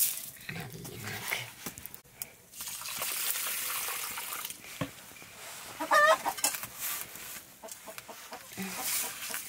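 Dry rice poured into a metal pot at the start, then water poured from a jug onto the rice, a steady splashing pour lasting about two seconds. About six seconds in, a chicken clucks once, loudly.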